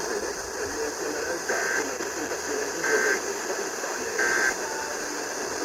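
Three short bursts of Emergency Alert System (SAME) digital data about 1.4 seconds apart, each a fraction of a second of buzzy warbling; bursts this short are the end-of-message code that closes an alert. They sit over a steady hiss of radio noise.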